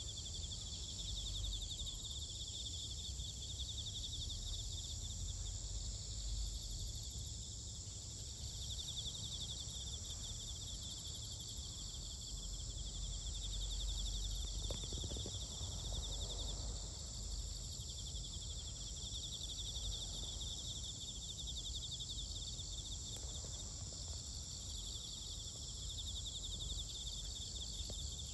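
A steady insect chorus: a high, fast, evenly pulsing trill over a higher constant buzz of more insects, with a low rumble underneath.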